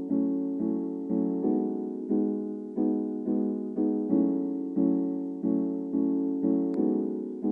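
Background music: soft electric piano chords struck about every two-thirds of a second, each fading before the next.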